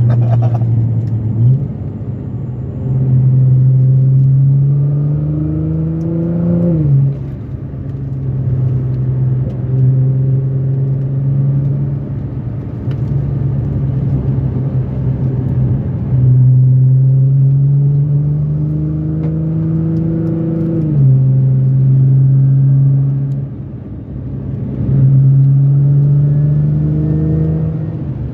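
GT-R camera car's engine heard from inside the cabin while lapping a race circuit. Its pitch climbs for several seconds and drops sharply at a gear change, twice, with stretches of steady running between and a short lift-off near the end.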